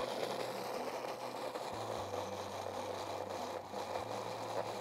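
Electric hand blender with a chopper bowl attachment running steadily, blending a wet mix of sauce ingredients into a paste.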